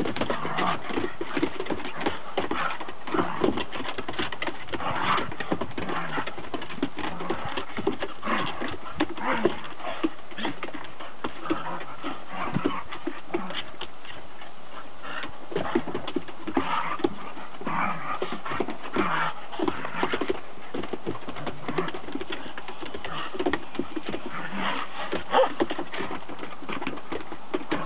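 Several dogs playing on a wooden deck, their claws clicking and feet pattering on the boards in a dense run of quick taps.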